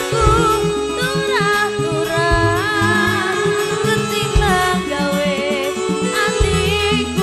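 Live campursari music over a PA system: an electone keyboard and bass with kendang drum strokes, and a woman singing a wavering melody into a microphone.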